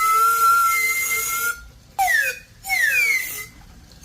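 Squealing of a striped yellow, red and white McDonald's plastic straw pressed and rubbed against the bottom of a plastic cup. One long squeal holds a steady pitch until about a second and a half in. Two shorter squeals follow, each sliding down in pitch.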